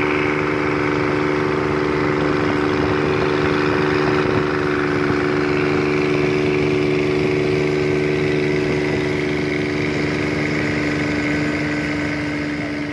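Boat engine running at a steady speed, a constant drone that eases off slightly near the end.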